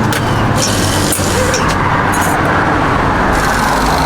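Truck engine running steadily: a low, even drone with a wash of traffic-like noise over it.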